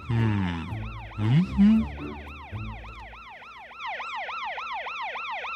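Cartoon police car siren in a quick, repeating rising-and-falling yelp. Lower rising tones sound over it in the first couple of seconds, the loudest moments about a second and a half in.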